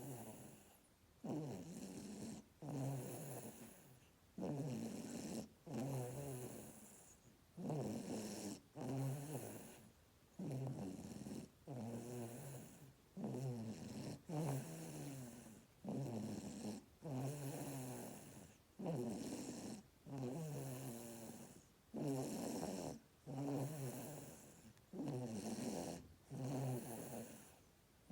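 A baby snoring in its sleep: a snore on each breath, about one every second and a half, each starting sharply and trailing off.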